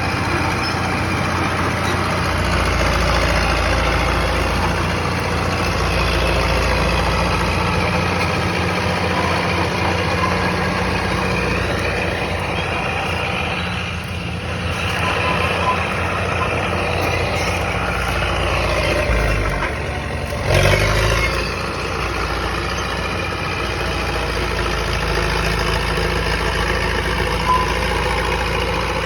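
Caterpillar D4E crawler dozer's diesel engine running steadily, its low rumble swelling and easing as the load changes. A brief louder burst comes about twenty seconds in.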